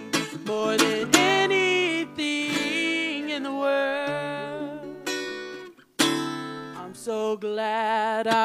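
A woman singing a slow love song, holding long wavering notes over strummed acoustic guitar. The sound drops out for a moment about six seconds in.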